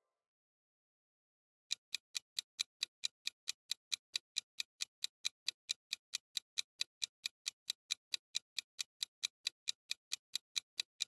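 Clock-ticking sound effect for a quiz countdown timer: quick, even ticks about four a second, starting after about a second and a half of silence.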